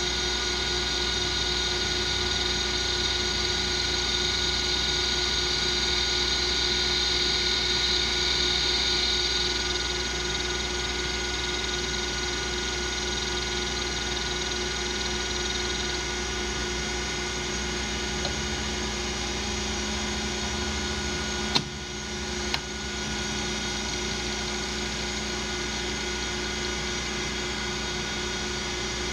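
Metal lathe running, turning the outside diameter of a round metal part to take out a taper: a steady motor and gear whine, with a higher cutting hiss over the first ten seconds or so that fades away. Two sharp clicks a second apart come about two-thirds of the way through.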